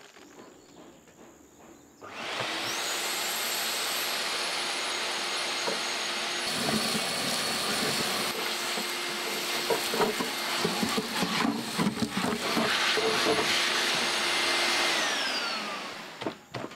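A dust extractor switches on about two seconds in, its motor whine rising quickly and then holding steady. It sucks a sand, cement and aggregate mix through the hose into a cyclonic pre-separator, with gritty crackles as the aggregate rattles through. Near the end it is switched off and the whine falls away as the motor spins down.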